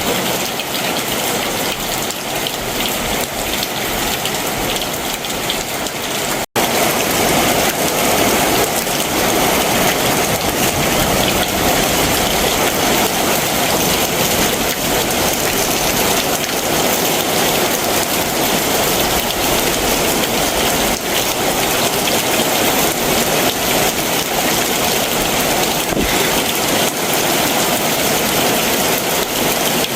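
Heavy summer monsoon downpour, a steady dense rush of rain. About six seconds in the sound cuts out for an instant and comes back slightly louder.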